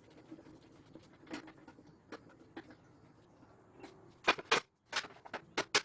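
A few faint clicks, then a quick run of sharp clicks and knocks near the end.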